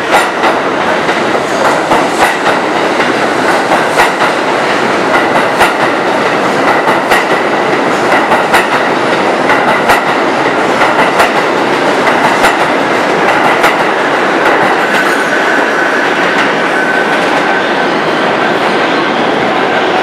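R62A subway train pulling out of an underground station and speeding up past the listener: steel wheels clacking over rail joints, at first about two clacks a second, then quicker until they merge into a steady loud rattle. A thin high wheel squeal comes in past the middle and drops slightly in pitch.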